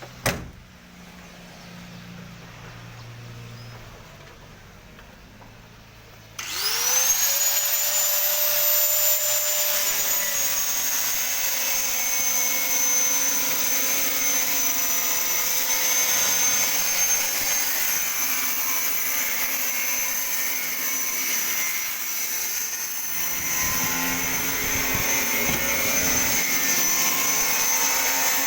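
Electric angle grinder starting up about six seconds in, its whine rising quickly and then running steadily at speed with a high-pitched whine. Before it there is only a low workshop hum and a click near the start.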